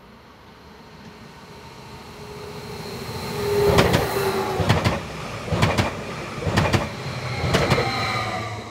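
Stadler FLIRT electric multiple unit passing close by: a rumble that builds as it approaches, then paired clacks from its wheel sets on the track about once a second, with a thin whine over the running noise. The sound drops away abruptly as the end of the train passes near the end.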